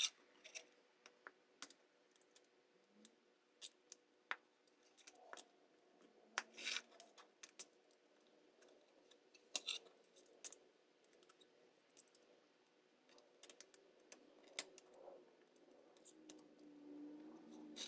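Stiff paper dial face crackling and clicking as it is pressed by hand into the metal rim of a kitchen scale: a string of sharp, irregular clicks and crinkles.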